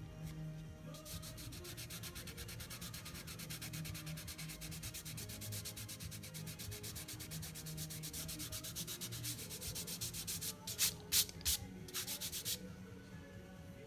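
Pencil scratching on watercolour paper in fast, even back-and-forth strokes, with a few louder strokes near the end.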